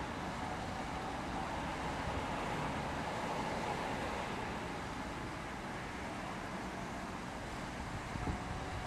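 Vy Class 72 electric multiple unit running away along curved track: a steady rumble of wheels and motors with a faint high whine, dropping slightly in level as it recedes. A few gusts of wind hit the microphone near the end.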